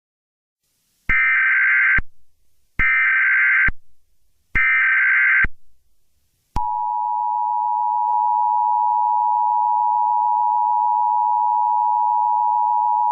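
Emergency Alert System signal: three short bursts of SAME header data tones, about a second each, then from about six and a half seconds in the steady two-tone attention signal, held without a break.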